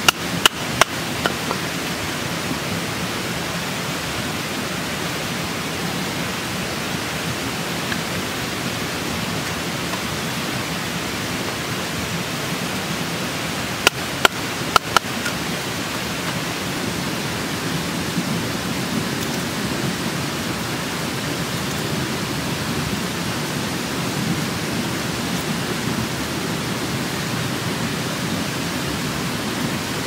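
Steady rushing of a nearby river, with two brief clusters of sharp clicks or knocks: three or four near the start and four more about fourteen seconds in.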